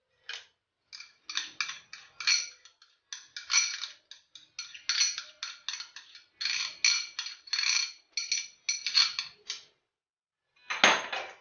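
Repeated light metallic clinks of a spoon against dishware, irregular at about three or four a second, ending with one louder clatter near the end.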